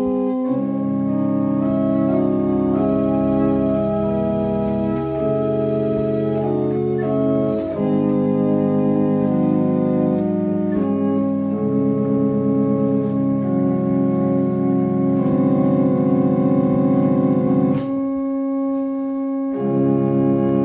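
A small wooden chamber organ played in slow, sustained chords. Near the end the lower notes drop out for a couple of seconds, then the full chord returns.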